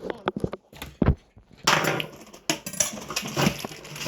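Kitchen handling sounds: several quick knocks and clatters in the first second, then a longer stretch of rustling, scraping noise.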